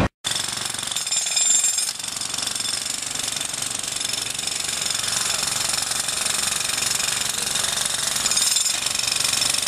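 Construction machinery running steadily at road works, a dense, even mechanical clatter that starts abruptly and keeps on without a break.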